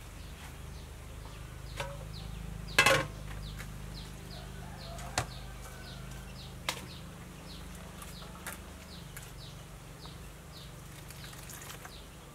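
Hands squeezing wet grated coconut in water in a plastic bowl, with a few short sharp sounds, the loudest about three seconds in. Behind it a high chirp repeats about twice a second.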